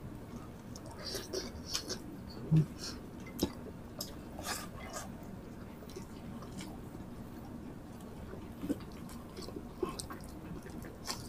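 Close-up chewing and lip smacks of two people eating rice and tocino with their bare hands, heard as scattered short smacks and clicks.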